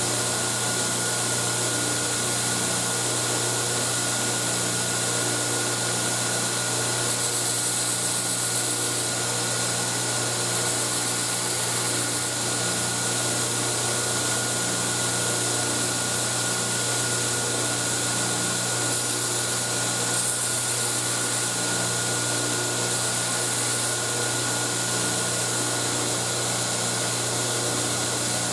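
Electric belt grinder running steadily while a small steel FAL rifle gas plug is ground on it, cutting the V-notch over its vent hole. The motor's steady hum sits under a continuous grinding hiss.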